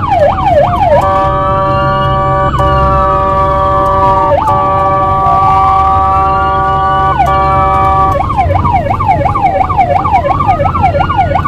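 Ambulance siren, loud: a fast yelp sweeping up and down about three times a second, switching about a second in to a steady blaring horn tone broken by short gaps, then back to the fast yelp about eight seconds in. A slower wail sweeps up and down throughout, under low engine and road noise.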